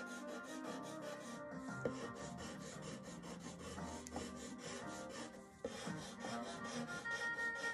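Pastel pencil scratching across toothed pastel paper in quick, even back-and-forth strokes, several a second, as colour is layered on. Soft background music plays underneath.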